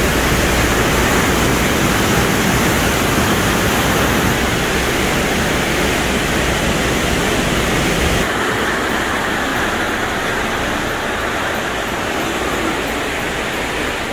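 Water rushing and churning in a canal lock chamber as the lock drains through the valves at the bottom of the gate: a loud, steady rush of turbulent water, a very strong current. About eight seconds in the sound turns thinner, losing some of its deep rumble and hiss.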